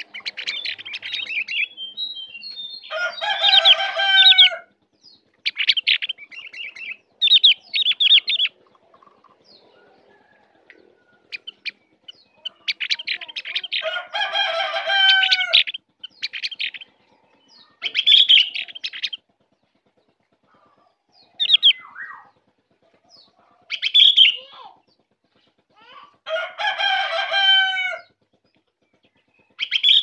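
A caged opior songbird singing in about ten separate bursts with short pauses between them: quick, bright chattering trills, and three longer, harsher phrases (a few seconds in, around the middle, and near the end).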